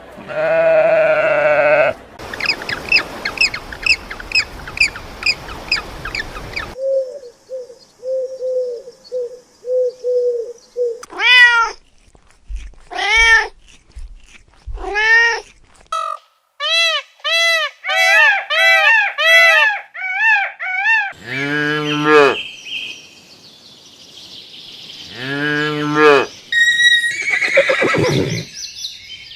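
Several different animal calls one after another, each lasting a few seconds and changing suddenly: fast repeated chirps, then a string of short even calls, then rising cries, then long pitched calls near the end.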